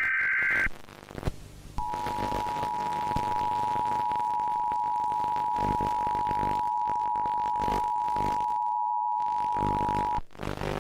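The end of an Emergency Alert System data burst, a short electronic screech, followed by the EAS attention signal. This is the two-note alarm tone, held steady for about eight seconds, and it cuts off shortly before the end. A low drone runs underneath.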